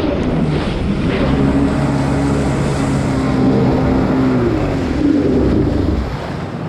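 Two-stroke engine of a Kawasaki stand-up jet ski running at speed under a hiss of water spray, its pitch shifting about five seconds in. The level drops near the end as the throttle eases off.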